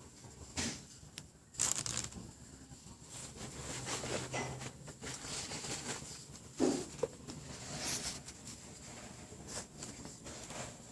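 Irregular crinkling, rustling and small clicks of hands working the hidden jewelry packet out of a jewelry candle's wax and opening its wrapping.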